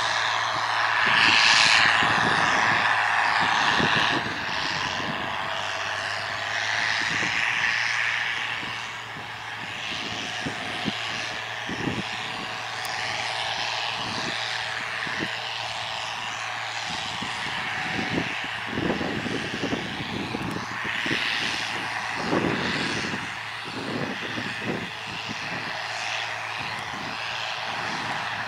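Belarus MTZ-1221 tractor's diesel engine running steadily under load as it pulls a corn planter across a soft field, loudest in the first few seconds and then easing off slightly.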